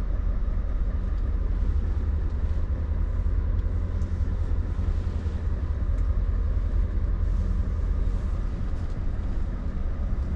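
Scania lorry's diesel engine running steadily at low revs, heard from inside the cab as the truck creeps forward at walking pace, with a deep even rumble.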